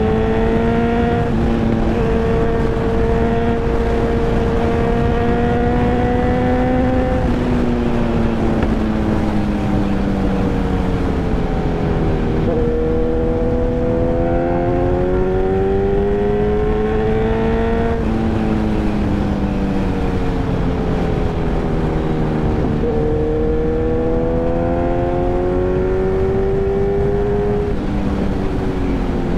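Kawasaki Ninja 1000's inline-four engine running under way, its note climbing and sinking with the throttle and stepping sharply about every five or six seconds as gears are changed, over a steady rush of wind.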